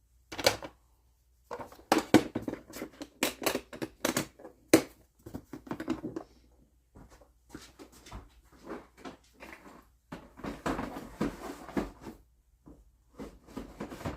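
Irregular clicks, knocks and clatter of hand tools being handled on a workbench, as a drill and a 1/4-inch drill bit are picked up and readied. No drill motor is running.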